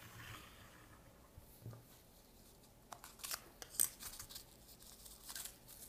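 Faint clicks and scrapes of small plastic parts being handled, as the battery cover of a small remote control is worked off, with a soft knock about two seconds in.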